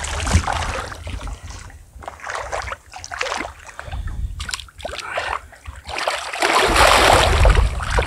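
Water splashing and sloshing, with irregular knocks and handling noises, then a louder rushing noise near the end.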